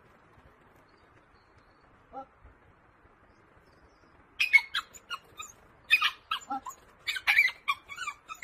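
A single faint call about two seconds in, then from about four seconds in a quick run of short, sharp, high-pitched animal chirps.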